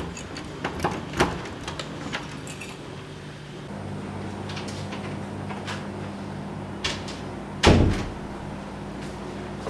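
Door sounds: several sharp clicks and knocks, then one heavy thud of a door shutting, the loudest sound, about three-quarters of the way through. A low steady hum comes in about four seconds in.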